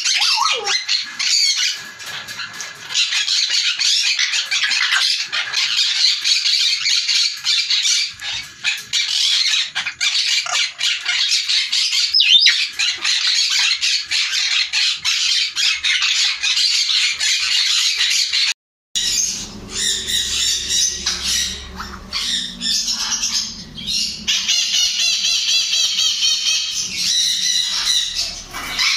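Many grey parrots squawking and chattering without pause. About two-thirds of the way through, the sound cuts off briefly. It comes back with more separate, distinct calls over a low hum.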